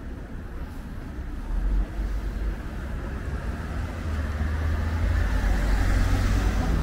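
Street traffic: a car's engine and tyres getting steadily louder as it approaches, over a low rumble.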